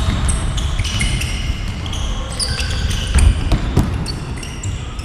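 Shoes squeaking on an indoor sports-hall floor during a football game, with many short high squeaks and a couple of sharp ball thuds a little past halfway, over a low rumble of the hall.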